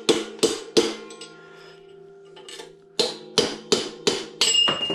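Steel hammer striking a punch held against a Ford 8.8 differential's cast-iron housing, driving a part out: three sharp metallic blows, a pause of about two seconds, then five or six more. The housing rings on after each hit.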